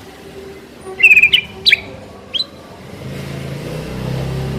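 White-rumped shama (murai batu) singing short phrases of sharp, quickly gliding whistled notes, loudest about a second in, with a further note near the middle. A low engine hum builds in the last second and a half.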